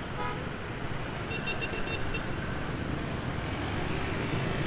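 Street traffic: a steady rumble of passing road vehicles, with a quick run of short high beeps about a second and a half in.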